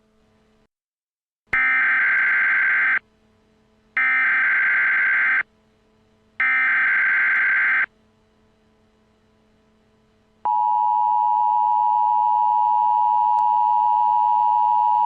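Emergency Alert System header: three bursts of SAME data tones, each about a second and a half long. About ten seconds in, the steady two-tone EAS attention signal begins.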